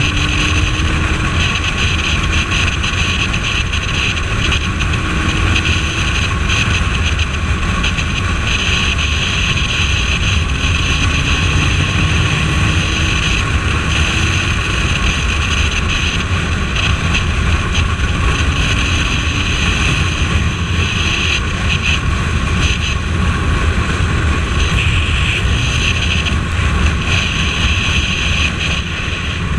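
Wind rushing over the camera microphone of a Suzuki Bandit 1250S ridden at speed, with the inline-four engine and road noise beneath. The engine note rises faintly a few times.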